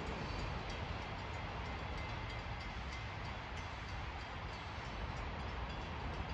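Steady low rumble of a diesel freight locomotive out of sight down the line, with no distinct knocks or horn blasts.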